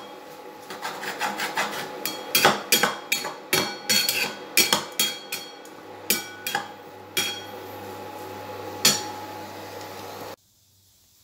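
A spatula scraping and knocking against a stainless steel pan as cauliflower fry is stirred, in quick irregular strokes that thin out after about six seconds, over a steady hum. The sound cuts off about ten seconds in.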